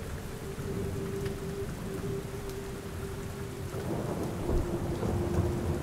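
Steady rain with a low rumble of thunder that swells about four seconds in. A faint held tone sits underneath, stepping slightly lower in pitch.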